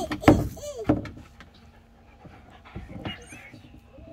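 A dog panting, with two thumps in the first second.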